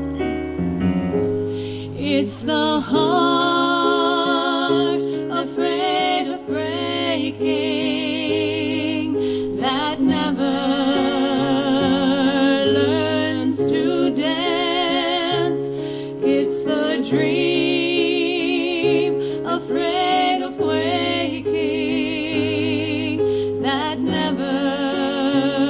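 Mixed choir singing a slow, sustained melody with vibrato, women's voices in front.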